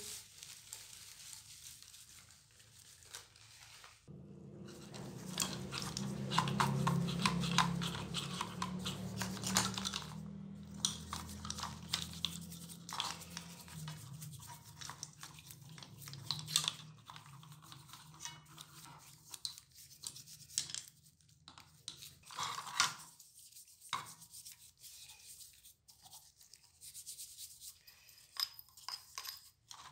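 Bristle paint brush scrubbing the metal and plastic parts of a CCTV camera housing in a bowl of soapy water, with irregular wet, scratchy strokes that are busiest in the first half.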